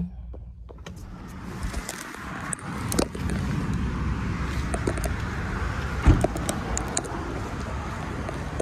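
Getting out of a car in a parking lot: steady outdoor wind and traffic noise with scattered handling clicks, and a heavy thump about six seconds in.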